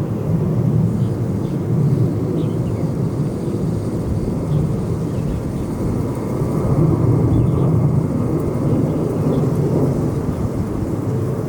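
Jet airliner engines running with a steady low rumble and a faint steady whine above it.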